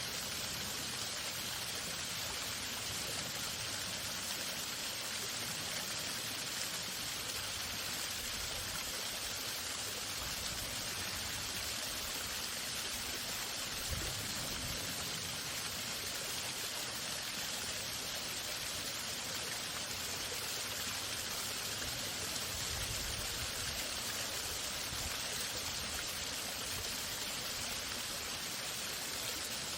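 Waterfall: a steady, unbroken rush of falling water, with a brief dull low bump about halfway through.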